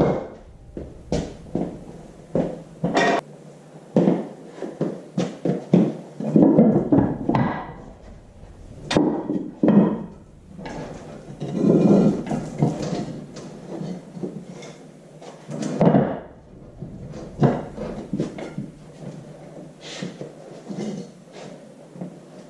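Irregular metal knocks and clanks from tools and engine parts being handled at a workbench, with a few longer, rougher stretches.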